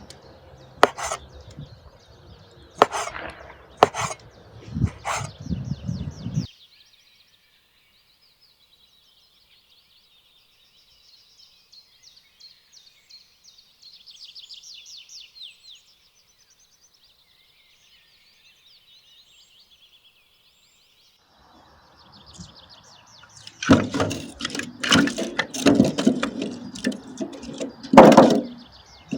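Small birds chirping and twittering, with sharp knocks and clatter for the first six seconds or so and a louder, denser run of knocks near the end.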